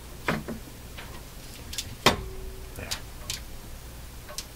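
Scattered clicks and knocks from the metal parts of an old record changer being worked by hand around its centre spindle and gear, about seven in all, the loudest about two seconds in. A low steady hum runs underneath.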